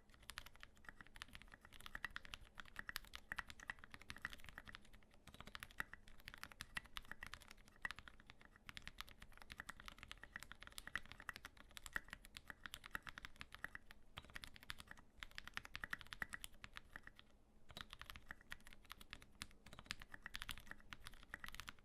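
Typing on a custom Volcano660 mechanical keyboard with a brass plate, lubed retooled black linear switches and SA-profile keycaps: rapid, continuous keystroke clacks, broken by a few short pauses.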